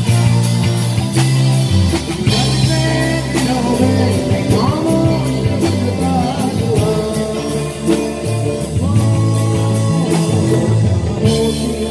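Rock band playing loud, amplified: drums and bass guitar with electric guitar and a singing voice.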